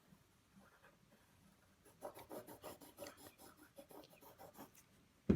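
Quick, repeated drawing strokes scratching on paper for about three seconds, then a single sharp knock near the end.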